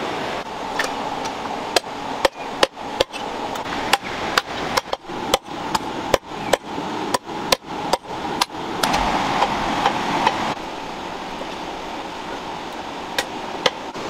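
A cleaver chopping cooked duck into pieces on a wooden chopping board: sharp chops at about two a second, which stop about eight and a half seconds in.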